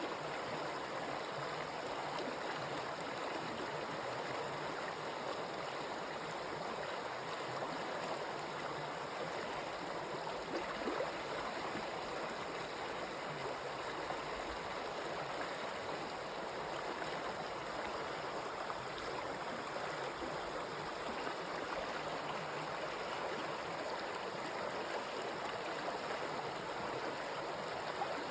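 A stream of running water, flowing steadily with an even, unbroken rush.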